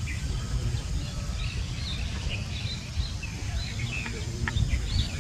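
Many short, high chirps from birds, scattered and overlapping, over a steady low rumble.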